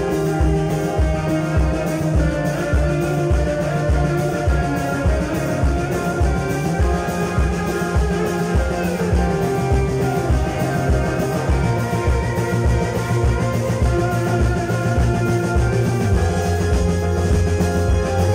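Live band playing rock: electric guitar and electric bass over a drum kit keeping a steady beat.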